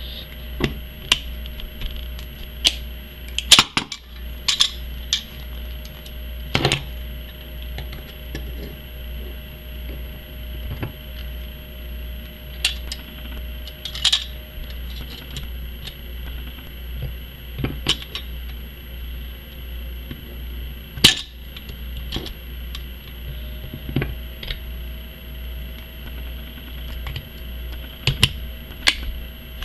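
Sharp metallic clicks and clinks, scattered irregularly with a few louder snaps, as channel-lock pliers and a second pair of pliers grip and squeeze a factory spring-band radiator hose clamp to re-lock it. A steady low hum runs underneath.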